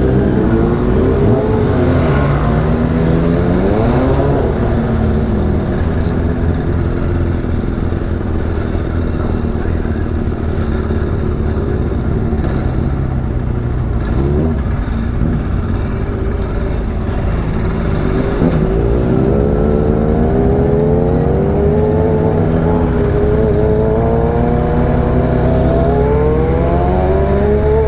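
Motorcycle engine accelerating hard through the gears. Its pitch climbs and drops back at each gear change several times, over a steady rush of wind and road noise.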